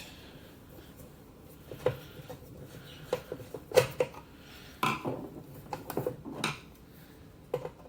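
Screwdriver turning out the front casing screw of an Automatic Electric Type 90 telephone: scattered light metallic clicks and knocks of the tool, screw and handled casing, about ten in all.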